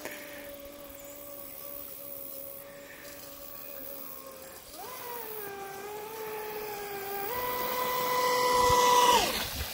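RAGE Black Marlin RC speedboat's electric motor whining as it runs across the water, its pitch following the throttle: steady at first, jumping higher about five seconds in, then stepping up and growing louder from about seven seconds, before falling away steeply near the end.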